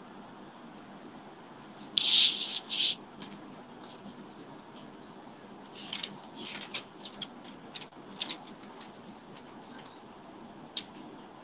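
A loud rustling burst about two seconds in, then a string of short, irregular rustles and clicks, over a faint steady hiss.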